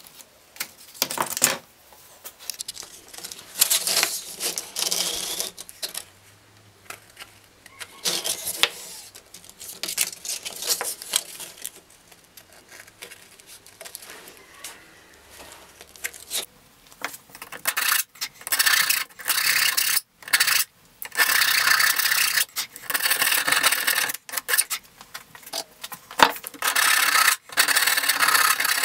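Paper rustling as sandpaper and a sanding belt are handled, then over the last dozen seconds a hand rasp scraping in repeated strokes across the end of a sandpaper strip, filing the abrasive grit off where the belt's lap joint will be glued.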